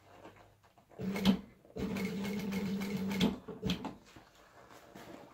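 Industrial sewing machine stitching a faux-leather seat cover. It runs in short bursts: a brief spurt about a second in, then a steady run of about a second and a half, then one quick blip.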